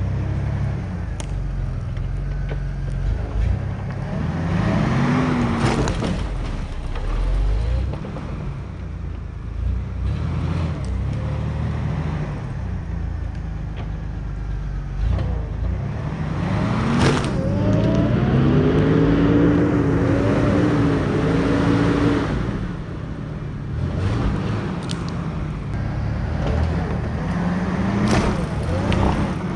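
A vehicle engine running, revving up under load twice: briefly about five seconds in and for several seconds in the middle. A few sharp knocks come through over it.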